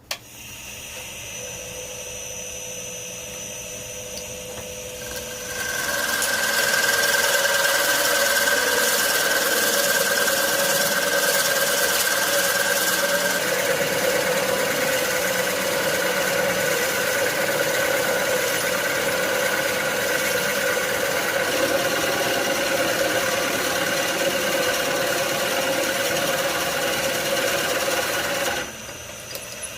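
A power tool running with a steady whine, growing clearly louder about five seconds in and dropping back near the end.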